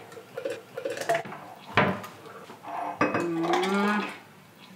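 Kitchen dish and utensil sounds: light clinks and one sharp knock a little under two seconds in. Then, about three seconds in, a person's drawn-out hum, rising slightly and lasting about a second.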